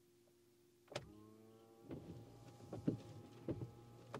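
Renault Scenic 3's windscreen washer pump and wiper motor running: a faint steady electric whine starts with a click about a second in, with a few light knocks as the wipers sweep the wet glass.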